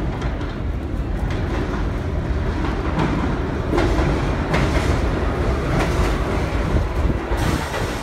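R62 subway train pulling into the station, its steady rumble growing louder from about four seconds in as the cars come alongside the platform. The wheels clack over rail joints every second or so.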